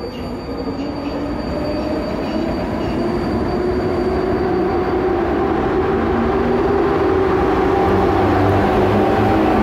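A train coming through the station, growing steadily louder, with a steady motor hum that rises slightly in pitch over the rumble of the wheels.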